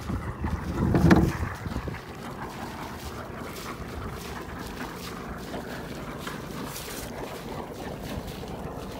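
Small boat under way on its outboard motor, with water wash and wind buffeting the microphone; a louder low rumble of wind about a second in.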